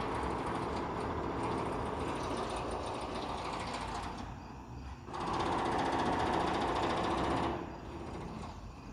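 A loud, droning, mechanical-sounding noise heard in the open air, the kind of unexplained noise called a 'strange sky sound'. It goes in two long stretches, the first about four seconds, then a short lull, then a louder stretch of about two and a half seconds.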